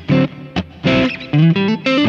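Electric guitar, a Fender Stratocaster, played through a Kemper profiling amp set to an edge-of-breakup blues tone. Short picked blues licks, with a quick rising run of notes near the end.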